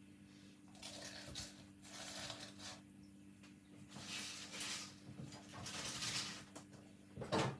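Fresh spinach leaves rustling as they are handled and pushed into a plastic blender cup, in four short bursts, with a short thump near the end.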